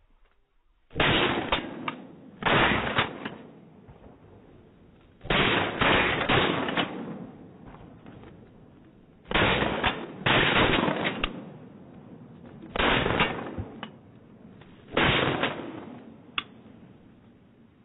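Shotgun blasts at flying ducks, in a volley of about ten shots that come mostly in close pairs every three to four seconds, each shot trailing off with a long echo.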